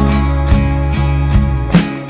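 Instrumental background music led by plucked acoustic guitar, with a few sharp percussive hits.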